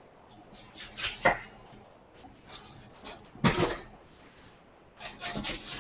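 Kitchen knife cutting into a head of cabbage on a cutting board: about four separate crunching cuts, taking the cabbage apart and its core out.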